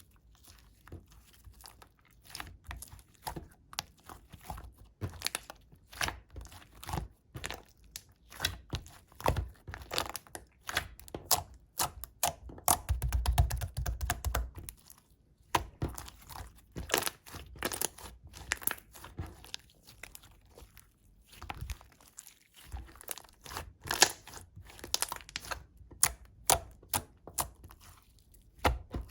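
Pink macaron slime being pressed, stretched and pulled apart by hand, giving an irregular string of quick clicks and pops, with a denser, heavier stretch about halfway through.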